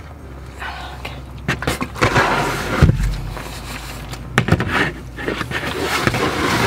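Containers of vehicle fluids knocking and scraping as they are set into a truck's storage compartment, with several sharp knocks between stretches of rustling.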